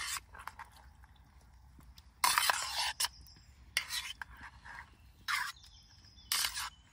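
Metal spoon stirring and scraping in a camping pot of potatoes and stewed steak, in five short scrapes, the longest a bit over two seconds in.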